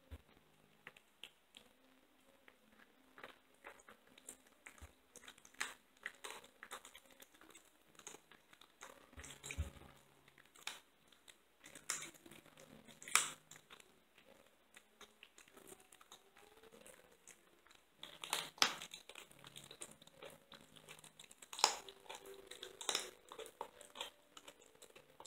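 Blue tortoiseshell kitten chewing and crunching a raw chicken wingette, bone and all: an irregular run of wet tearing and crackling crunches, with several louder crunches in the second half.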